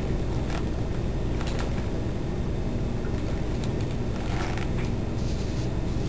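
Steady low rumble with a few faint clicks and rustles scattered through it.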